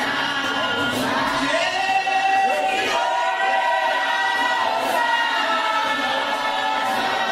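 A large church congregation of women and men singing a hymn together in long held notes.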